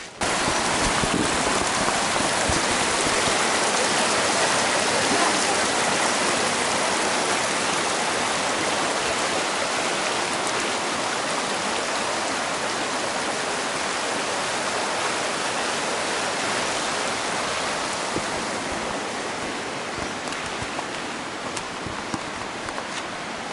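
Mountain creek rushing over rocks, a steady, dense wash of water. It comes in suddenly just after the start and eases a little over the last several seconds.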